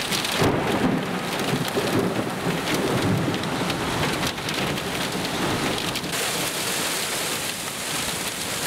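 Torrential rain mixed with hail pelting a car in the core of a severe supercell thunderstorm, a dense steady roar heard from inside the car that turns brighter and hissier about six seconds in.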